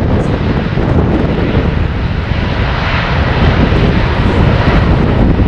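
Airbus A380's four turbofan jet engines at takeoff power during the takeoff roll: loud, steady jet noise with a deep rumble.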